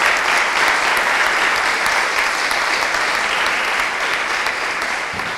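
Audience in a lecture hall applauding, a dense steady sound of many hands clapping at the end of a talk.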